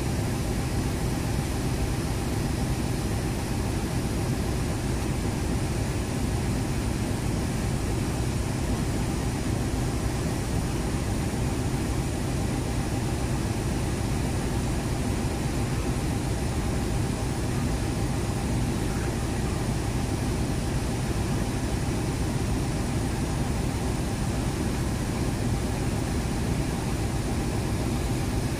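Steady low drone of idling train engines at a railway station, with a light hiss over it and no distinct events.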